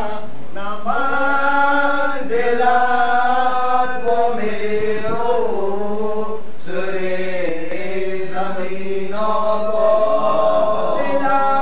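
A group of men chanting an Urdu salam, a Muharram elegy, together in unison with long held notes, unaccompanied.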